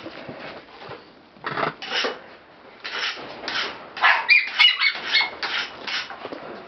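Black Shiba Inu puppy giving a few short, high whimpers about four seconds in. Around them is repeated rustling as a hand rubs the cloth and the puppy's fur.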